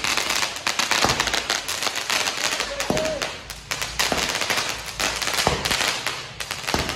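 Firecrackers going off, shooting columns of sparks into the air: a dense, rapid crackle of sharp pops and bangs.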